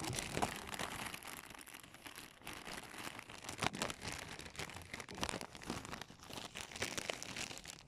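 Handling noise of a phone held close to the microphone: irregular rustling with scattered light clicks and taps as it is moved about.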